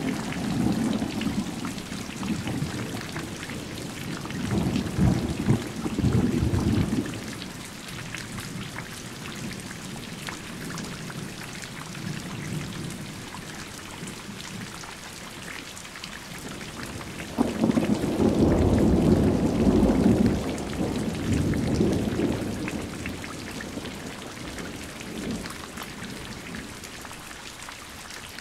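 Steady rain falling with two rolls of thunder: a rumble about five seconds in, and a louder one that cracks in suddenly about a third of the way from the end's halfway point, near 18 seconds, and rumbles on for a few seconds before fading back to the rain.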